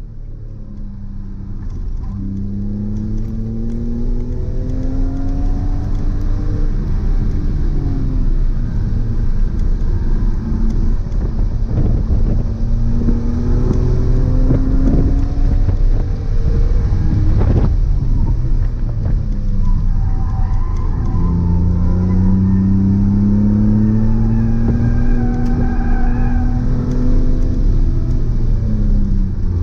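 Car engine accelerating hard, its pitch climbing through each gear and dropping back at the upshifts, several times over.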